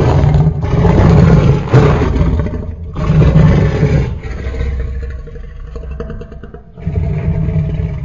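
Custom Tyrannosaurus rex roar sound effect, made from layered animal sounds: a long, deep, loud roar, a second shorter roar about three seconds in, a fading growl, then another roar near the end.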